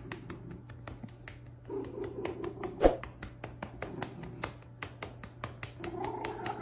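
A hand rapidly patting a cat's back and rump, a quick even run of soft pats about five a second, with one louder slap about three seconds in.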